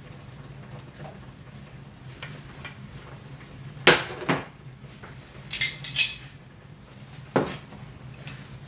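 A serving spoon knocking and scraping against dishes as rice is scooped onto a plate: a couple of sharp clinks about four seconds in, a scraping clatter a little later, and another clink near the end.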